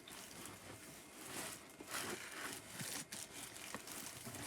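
Faint rustling and crinkling of packaging being handled, with a few light clicks.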